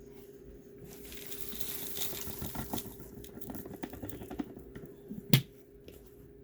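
Handling noises around a Bissell vacuum cleaner between runs: scattered clicks and a rustle, then one sharp knock about five seconds in, over a faint steady hum.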